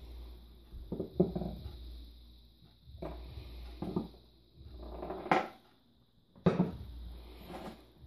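Handling noise on a wooden tabletop: a folding knife, pencil and leather sheath being moved and set down on a wooden board, giving several knocks with scraping and rustling in between, over a steady low hum.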